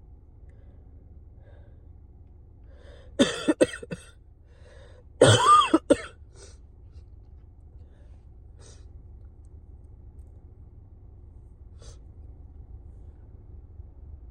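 A person with a cold sneezing: a quick cluster of short sneezes about three seconds in, then one longer, louder sneeze about five seconds in.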